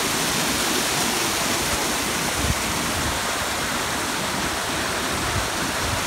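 Fast mountain river rushing white over rock ledges and small drops: a steady rush of water.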